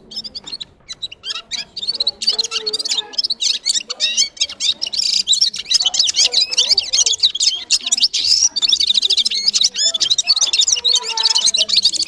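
Red-fronted serin singing a fast, continuous twittering song of high trills and warbles, sparser at first and fuller and louder from about two seconds in.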